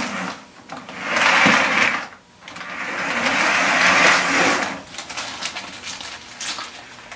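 Lionel O-gauge electric train running along the track, its motor whirring and wheels rattling. It moves in three spurts, the last and longest ending about five seconds in, after which it stops.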